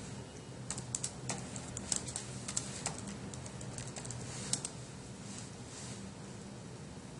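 Computer keyboard being typed on, an irregular run of key clicks that stops about four and a half seconds in, over a low steady hum.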